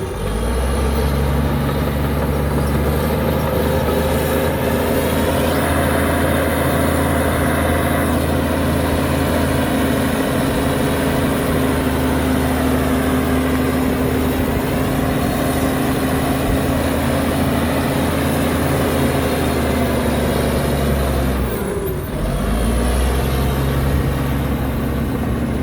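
Diesel engine of a heavy earthmoving machine running steadily at working revs. Its pitch sags and recovers briefly near the end.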